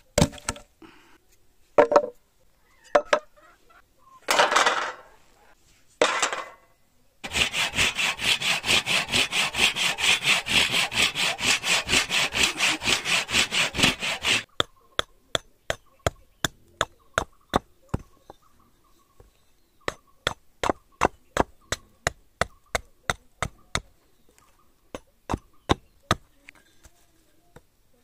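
Wooden boards handled and knocked, then a handsaw cutting through a plank with fast, even strokes, about four a second, for roughly seven seconds. After that comes a long run of sharp, regular wooden knocks, about two to three a second.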